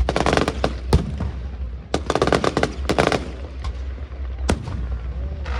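Fireworks going off: two spells of dense rapid crackling, each about a second long, with single sharp bangs between and after them.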